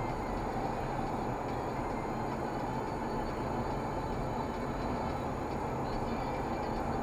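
Steady road and engine noise of a moving car, heard inside the cabin through a dash camera's built-in microphone.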